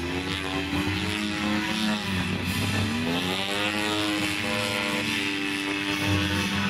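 Radio-controlled aerobatic model airplane's engine running through manoeuvres, its pitch falling about two seconds in and then climbing back as the throttle changes.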